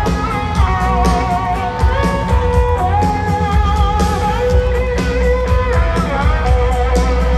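Live country-rock band playing loudly over a stadium sound system: strummed and electric guitars, bass and drums, with a held, slightly wavering lead melody line on top.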